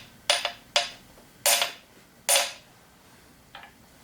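Small hammer tapping a metal part of a Bernina 217 sewing machine into position: a handful of sharp, separate taps, the last one faint near the end.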